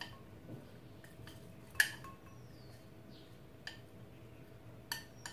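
Chopsticks tapping and scraping against a plate as sliced red onion is pushed off it into a bowl: a few light clicks, the sharpest a little under two seconds in.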